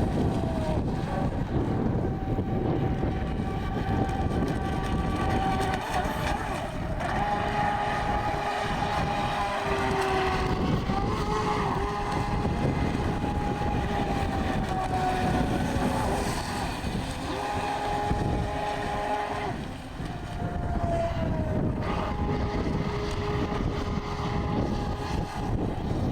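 Electric motor of a radio-controlled toy boat whining in bursts of a few seconds, switching on and off with its pitch sliding up and down as the throttle changes, over a steady rushing noise.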